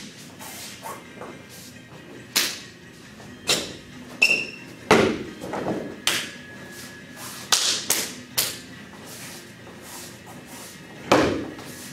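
Feet stomping hard on the floor during a praying mantis kung fu form: seven or so heavy thumps at uneven intervals, the loudest about five seconds in and near the end.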